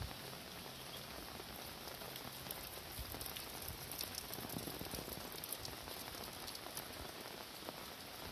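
Steady rain falling, with a dense spatter of individual drops ticking on surfaces, a little heavier in the middle, and a few soft low thumps.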